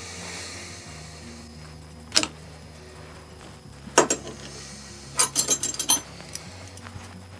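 Sharp metallic clinks of small parts and tools being handled on a workbench: one about two seconds in, another at four seconds, then a quick run of about six clinks. Quiet background music with slow held notes plays underneath.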